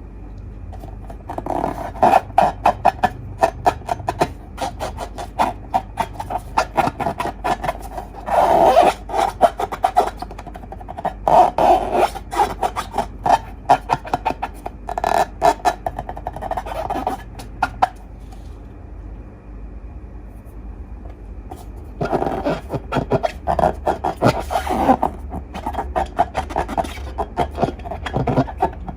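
Slime being squished and worked by hand: bursts of crackling and popping clicks, with a pause of a few seconds about two-thirds of the way through.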